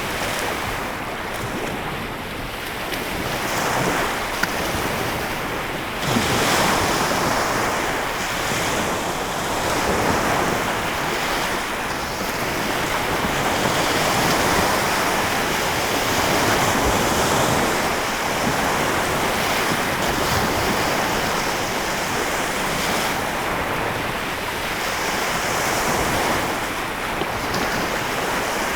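Lake Michigan waves breaking and washing on the shore, a steady wash that swells and eases every few seconds, with one sharper surge about six seconds in. Wind buffets the microphone.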